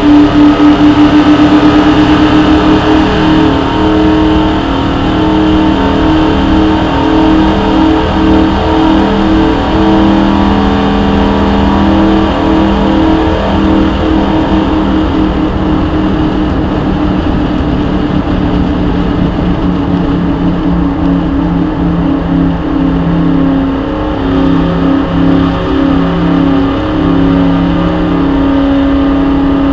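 A stock car's V8 engine running hard at a fairly steady high pitch, with small dips and rises as it laps a banked oval, heard through an onboard camera inside the car.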